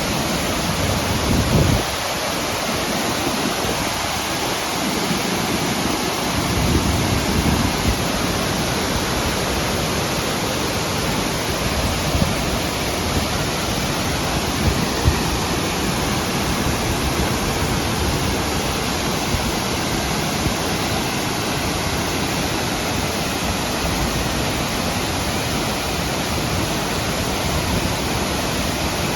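Waterfall rushing steadily, an even noise of falling water, with brief low rumbles near the start and again about seven seconds in.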